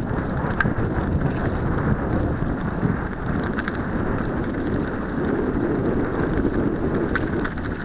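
Mountain bike rolling downhill over a loose-stone dirt trail, its tyres rattling over gravel with scattered clicks, under steady wind noise on the microphone.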